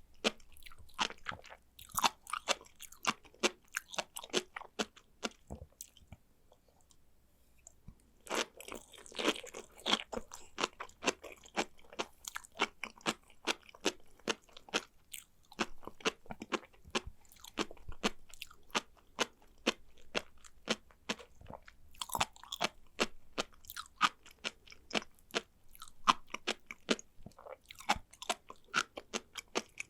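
Close-miked chewing of sea grapes: quick, sharp little pops and crunches as the beaded seaweed bursts between the teeth, with a pause of a couple of seconds about six seconds in.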